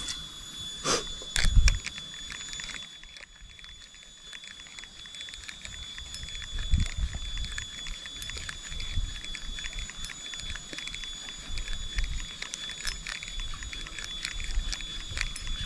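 Rod and spinning reel being handled while a topwater lure is worked, with scattered clicks and low thumps. A steady high-pitched whine runs underneath.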